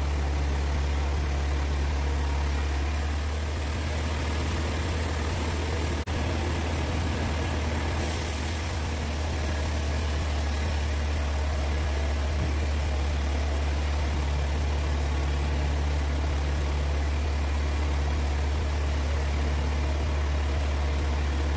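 Sawmill machinery running steadily with a strong low hum, with a momentary break about six seconds in.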